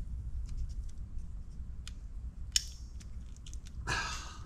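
Threaded pipe nipple coated in pipe dope being screwed by hand into a female fitting: small clicks, one sharp tick about two and a half seconds in, and a short scrape of the threads near the end.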